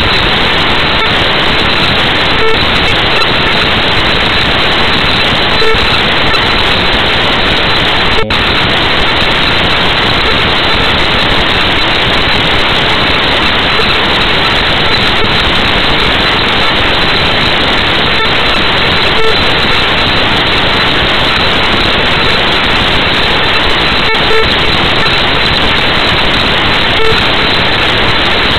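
Loud, steady static hiss in the recording, with no speech audible through it, and a momentary dropout about eight seconds in.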